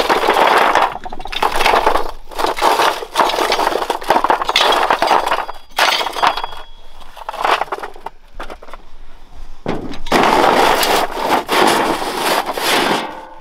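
Lumps of iron ore, roasted on a bed of embers, raked and shovelled onto a sheet-metal tray: a loud, continuous clatter of stone knocking on stone and scraping on metal, with short pauses about six and ten seconds in.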